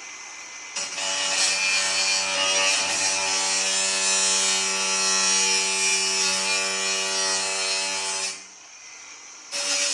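Power tool cutting sheet-metal HVAC duct: a steady motor whine under a harsh cutting noise, running for about seven seconds, stopping, then starting again near the end.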